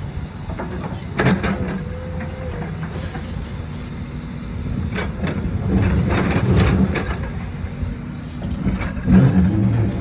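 Backhoe's diesel engine running with a steady low rumble, with knocks and clatter from the cinder block wall being broken down, loudest about nine seconds in.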